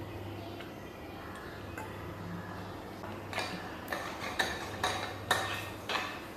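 A run of about eight light clicks and clinks over the last three seconds, over a faint low hum.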